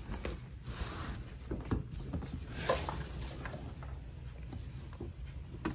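Light clicks, knocks and rustling from a white plastic slatted basket being handled and moved over a wooden floor, with a sharper click near the end.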